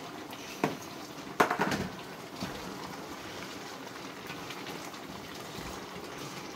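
Steady sizzling hiss from a large pot of meat steaming on the stove. Dry fish is tipped in from a plastic tray and stirred with a wooden spoon: a light knock just over half a second in, then a short clatter against the pot about a second and a half in.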